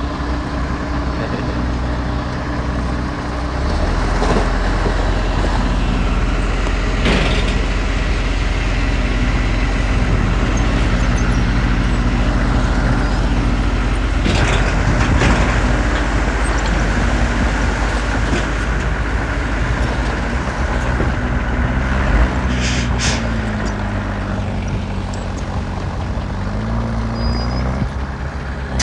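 Heavy diesel engines of a dump truck and bulldozer working in mud, running under load with the pitch rising and falling as they are throttled. It gets louder about four seconds in, with a few short sharp noises along the way.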